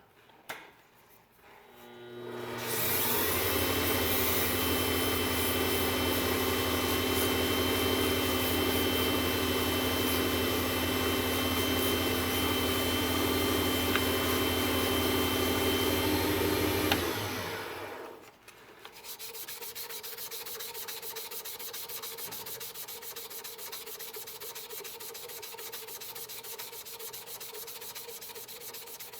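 WEN lathe motor starting up and running steadily while sandpaper rubs against a spinning acrylic pen blank, the motor winding down about 17 seconds in. After a short pause, a quieter, finely rhythmic rubbing carries on.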